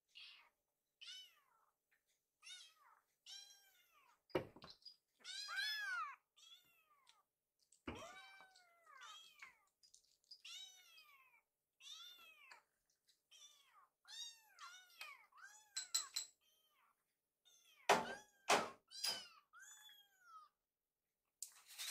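Several hungry kittens meowing over and over for food, short high cries overlapping one after another. A few sharp thumps, including a cluster of three about three-quarters of the way through.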